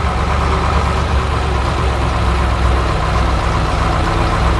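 Road roller's heavy engine running steadily: a deep low rumble with a steady higher whine over it.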